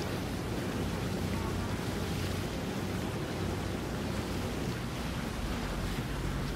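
Steady rush of wind on the microphone and water noise, under a low hum of boat engines; another engine note comes in near the end.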